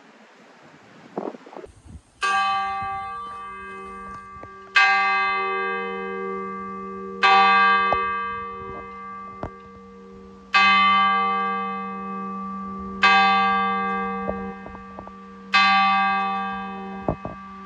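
Church bell tolling to call to a service. The bell is struck six times, the first about two seconds in and then roughly every two and a half seconds. Each stroke rings out and fades slowly over a steady low hum that carries on between strokes.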